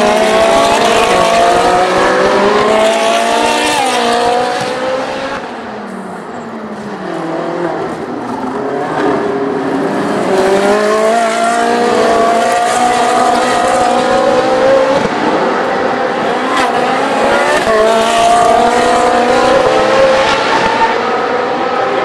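Several Ferrari 458 Challenge race cars' 4.5-litre V8 engines accelerating hard one after another, the pitch climbing and dropping back with each upshift. It eases off for a couple of seconds about six seconds in, then the next cars come through.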